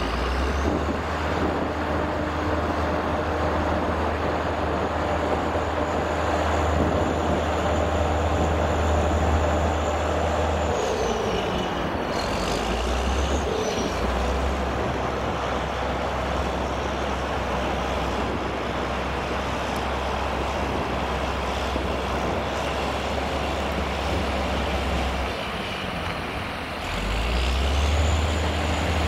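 Scania P440 6x6 tipper trucks loaded with sand driving away up a muddy haul road, their straight-six diesel engines running steadily under load. About eleven seconds in the engine note drops and climbs again, and near the end it picks up and gets louder.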